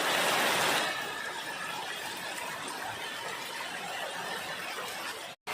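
Heavy rain falling: a steady, dense hiss, a little louder in the first second, that cuts off suddenly near the end.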